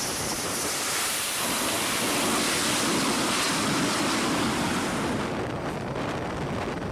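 Loud rushing jet noise from a Dassault Rafale M's twin turbofan engines as it comes in to land on a carrier deck. The noise swells over the first couple of seconds and eases a little after about five.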